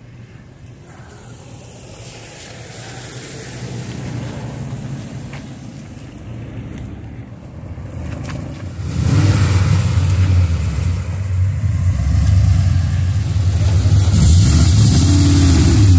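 Cars driving past one after another on wet pavement, engines running with tyre hiss. About nine seconds in it gets much louder, and a deep engine rumble builds toward the end as a Ford Mustang with the 4.6-litre V8 drives by.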